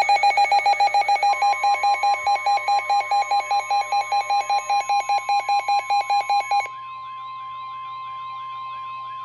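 Weather alert radio sounding for an incoming snow squall warning from NOAA Weather Radio station KIH28. Rapid pulsing alarm beeps stop abruptly about two-thirds of the way through. Under them runs the steady 1050 Hz NOAA Weather Radio warning tone, joined by a warbling alert tone once the beeps stop.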